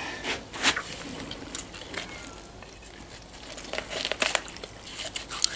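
Soft wet handling noises as a pig's intestines are cut free with a knife and lifted into a metal basin: scattered clicks, crackles and tearing, thickest about four seconds in.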